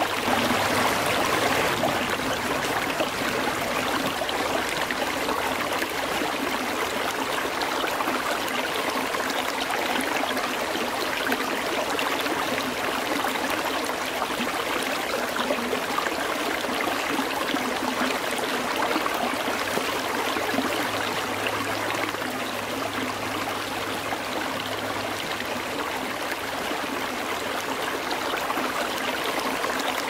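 Mountain stream flowing: a steady, even rush of water.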